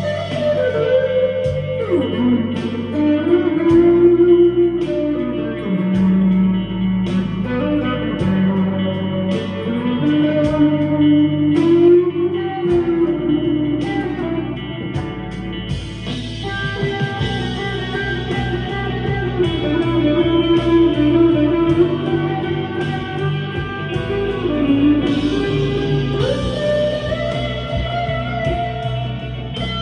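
Electric guitar, a Harley Benton CST-24, played through a Vox AV15 amp's crunch channel with reverb, delay and chorus, playing sustained melodic lines. A steady beat and low bass notes sound underneath.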